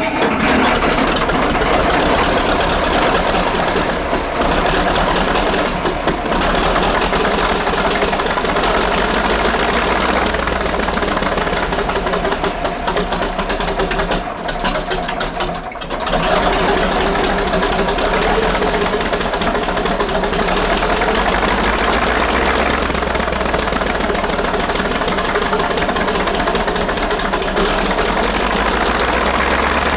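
1948 Buda 8-DC-1125 straight-eight diesel running just after a cold start. It falters briefly about 4 and 6 seconds in and longer around 14 to 16 seconds in, then picks up and runs steadily.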